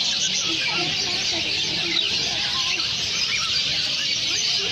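Many birds calling at once: a dense, steady chatter of overlapping chirps and short squawks, with no breaks.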